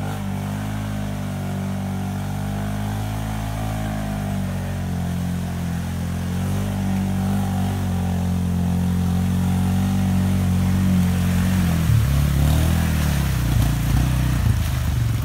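Honda FourTrax 350 ATV's single-cylinder engine pulling through a deep, water-filled mud hole, getting steadily louder as it comes closer. The revs rise and fall in the last few seconds.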